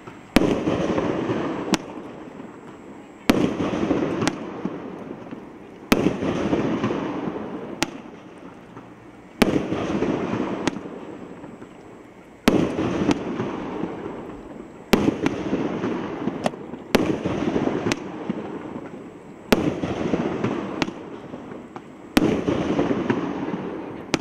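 500-gram 'Last Hoorah' firework cake firing its shots one after another. There is a sharp bang every two to three seconds with lighter reports between them, and each bang is followed by a noisy tail that fades over about two seconds.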